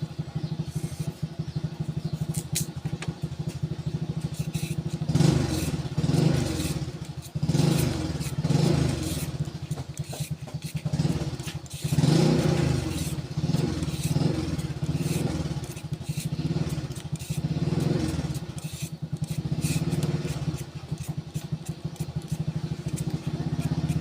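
A small engine running continuously, with its speed swelling and falling several times.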